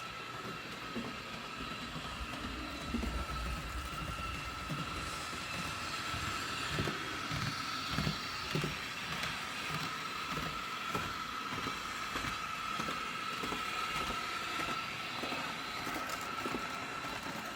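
Piko Class 442 EMU HO-scale model train running along the track: a steady whine with irregular light clicks and knocks from the wheels on the rails.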